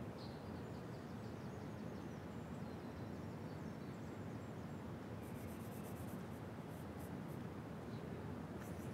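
Steady outdoor ambience: an even low background hum with faint bird chirps in the first few seconds. About halfway through, short runs of rapid, high-pitched scratchy pulses begin and come back near the end.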